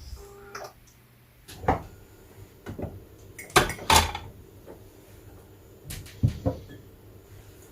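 About five sharp knocks and clicks at irregular intervals, with a brief faint tone at the very start.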